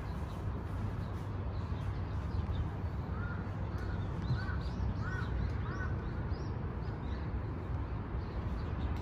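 A crow cawing: a quick run of about six short caws about three seconds in, over a steady low background rumble.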